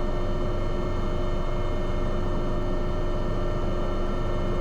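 AW189 helicopter cockpit noise on a slow final approach: a steady rumble with a constant whine running under it.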